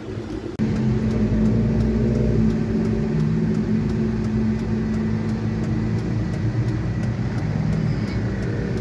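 Car engine running with a steady low hum, heard from inside the cabin as the car moves slowly. The sound steps up suddenly about half a second in and then holds even.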